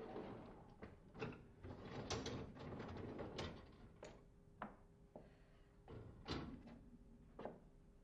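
Dishwasher wire racks rattling as they roll out on their rails, then a series of sharp clicks and clinks as ceramic mugs are set into the upper rack; faint.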